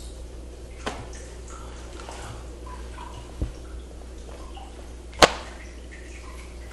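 Joints popping during a chiropractic manipulation: a single sharp crack about five seconds in is the loudest sound. Before it come a softer click about a second in and a dull knock near the middle, over a steady low hum.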